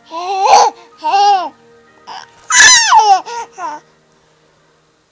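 Six-month-old baby shouting and squealing: three loud, high-pitched vocal bursts that bend up and down in pitch, the last one the longest, over about four seconds, then quiet.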